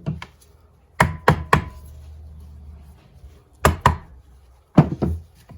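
Sharp knocks on a motorcycle engine's top end: three quick taps about a second in, two more a little past the middle and one more near the end, loosening a stuck part of the CR250 two-stroke head or cylinder.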